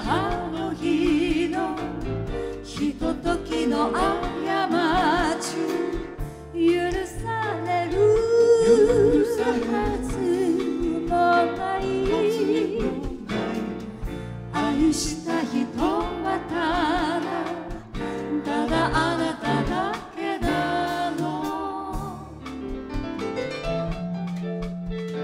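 Live pop band with piano, drums and guitar accompanying a woman and a man singing into microphones. The voices drop out near the end, leaving the band playing on.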